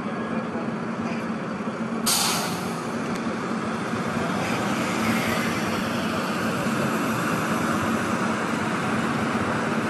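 City street traffic, with cars and motorcycles running through an intersection. About two seconds in there is a sudden hiss that fades over about a second.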